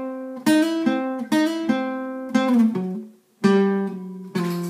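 Acoustic guitar playing a short blues lick in C of about six picked notes, working between the minor third and the major third. A couple of notes slide in pitch, and the sound is cut off briefly about three seconds in before the last notes ring.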